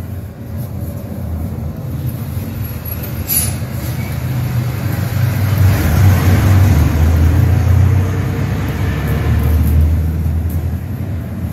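A low, engine-like rumble builds from about four seconds in and eases off near the end, over the rubbing of a cloth wiped across the white plastic backlight diffuser panel of an LCD TV. A single sharp click sounds about three seconds in.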